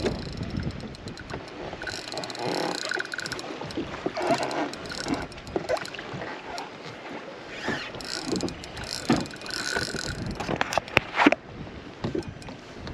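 Spinning reel working during the fight with a big black drum, in two stretches of rapid clicking buzz, over wind on the microphone and water against the boat's hull. A few sharp knocks come near the end.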